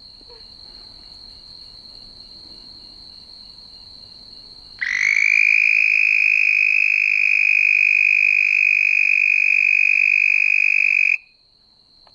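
Male red-spotted toad giving its breeding call: one long, loud, high musical trill that starts about five seconds in, rises slightly in pitch at the onset, holds steady, and stops abruptly after about six seconds. A thin steady high tone runs underneath throughout.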